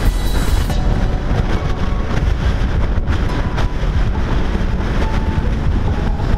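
A 4x4's engine running steadily, heard through a camera mounted on its bonnet, with wind rumbling on the microphone.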